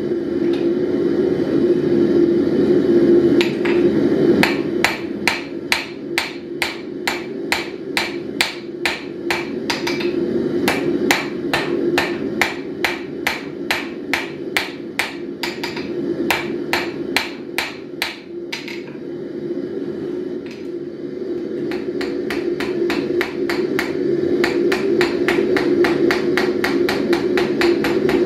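Ball-peen hammer striking red-hot steel rod on an anvil in a steady rhythm of about three blows a second, with a break of a few seconds about two thirds of the way through before the blows resume. Under it runs the steady low roar of a gas forge's burners.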